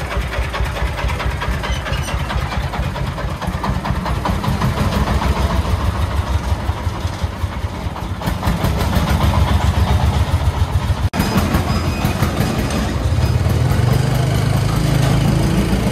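Engine of a homemade three-wheeled công nông dump truck chugging with a steady, rapid pulse as the truck pulls away and drives off. It gets louder from about the middle onward, with a brief break about two-thirds of the way through.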